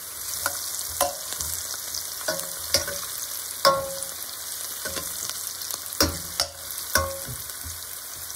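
Sliced onions sizzling in hot oil in a stainless steel pot. A metal spoon stirs them and clinks against the pot several times, each knock briefly ringing.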